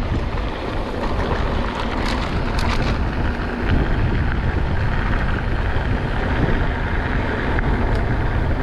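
Wind buffeting the microphone and steady rumble of a mountain bike riding over a trail, with a few sharp rattling clicks about two to three seconds in.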